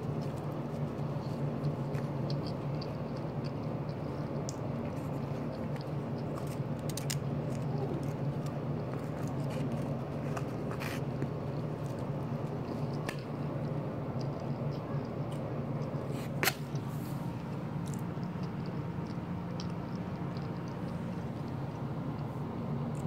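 Steady low room hum with scattered small clicks and taps, the loudest a single sharp click about sixteen seconds in.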